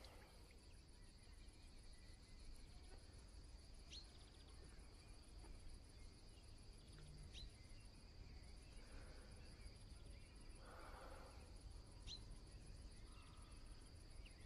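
Faint, steady chirring of insects, a high continuous trill, with three short rising chirps about four, seven and twelve seconds in.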